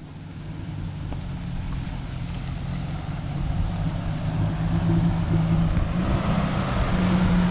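Engine of an off-road 4x4 running steadily and growing louder as it comes closer, its pitch stepping up about six seconds in as it is given more throttle.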